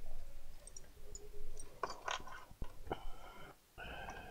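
A ring of metal hex keys clinking and rattling as they are handled and sorted through, with a few sharp clicks about two seconds in.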